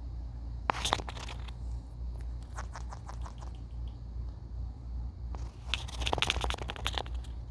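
Indian ringneck parrot pecking and scraping at the phone at close range: three bursts of rapid small clicks and scratches, the last and loudest near the end, over a steady low hum.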